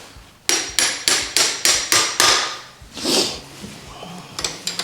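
Metal-on-metal tapping on the end of a dirt bike's rear axle pin to drive it out of the wheel hub: a quick run of about seven sharp strikes, each with a short metallic ring, then a few lighter taps near the end.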